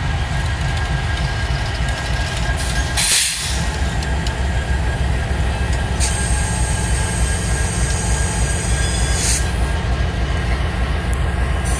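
Freight train cars rolling past with a steady low rumble of wheels on rail. A short hiss comes about three seconds in, and a high-pitched wheel squeal runs from about six to nine seconds in.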